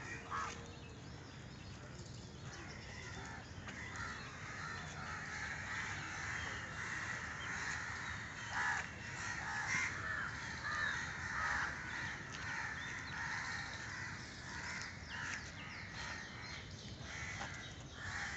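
Crows cawing over and over, many at once, with other birds calling around them.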